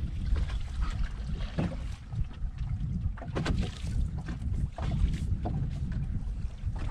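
Wind buffeting the microphone with a steady low rumble, and water splashing against the boat's hull in a few short slaps, clustered about three and a half seconds in.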